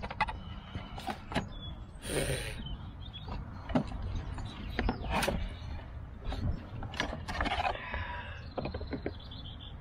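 Old Eberspacher D4 diesel heater being taken apart by hand: irregular clicks, knocks and scraping as its brittle, disintegrating plastic casing is worked loose with a screwdriver and pulled off the metal heat exchanger.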